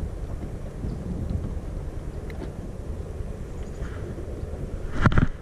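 Steady low rumble of wind buffeting the microphone, with a brief louder noise about five seconds in.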